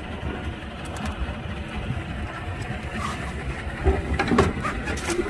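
Wind buffeting the microphone over the steady hum of a small fishing boat's engine, with a few sharp clicks and knocks about four seconds in.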